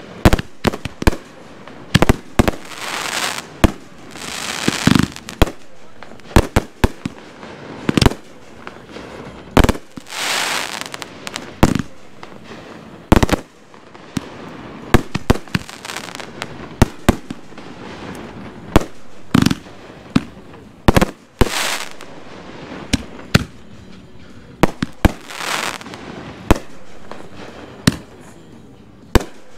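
Consumer aerial fireworks (500-gram cakes and reloadable shells) going off in quick succession: a steady run of sharp bangs, with several stretches of hissing crackle.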